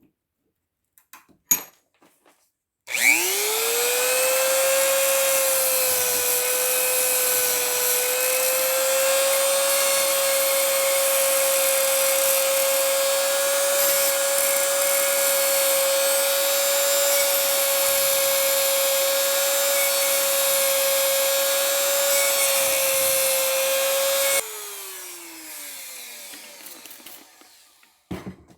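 A cheap Dremel-style rotary tool spins up about 3 s in and runs at a steady high whine, grinding and thinning the steel tip of a lock pick being made from a hacksaw blade. Near the end it is switched off and its pitch falls as it winds down, followed by a few light clicks.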